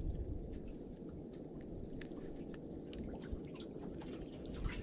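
Faint wet squishing and small clicks, as of a freshly caught fish being handled on a wet boat, over a steady low rumble.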